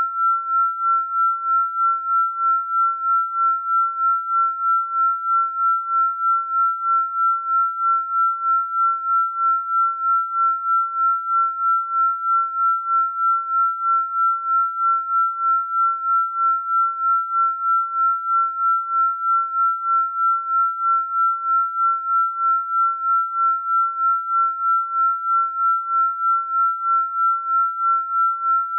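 A single synthesized pure tone, high and steady in pitch, pulsing evenly in loudness about twice a second: a meditation or 'healing frequency' tone.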